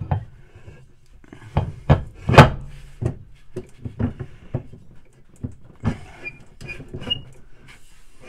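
Steel outer rotor of an LG direct-drive washer motor being turned and pressed by hand onto its splined shaft: a run of irregular metallic knocks and clunks as the splines are lined up, the loudest about two and a half seconds in.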